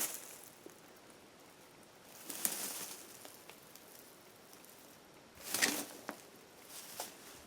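Two brief rustles, about three seconds apart, over a faint outdoor background.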